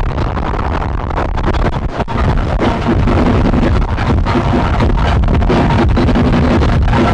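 Dense, noisy lo-fi music from a tape recording. About three seconds in it settles into a steadier, louder passage with held low notes.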